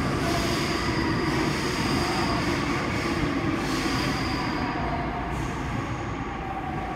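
Seoul Metro 5000-series electric subway train rolling into the station and slowing, heard through platform screen doors, with a thin high squeal over the steady rumble. The sound eases off gradually toward the end.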